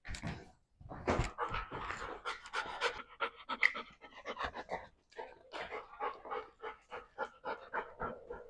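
Golden retriever panting hard, quick short breaths at about three to four a second, louder and busier between one and three seconds in. The dog is tired after an active day.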